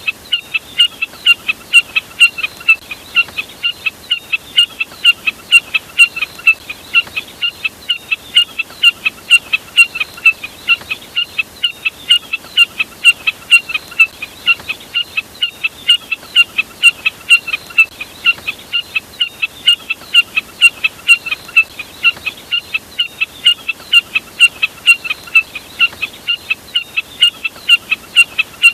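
Jack snipe call looped as a bird-lure recording: a rapid, steady series of short, sharp, high notes, about three a second, repeating without a break.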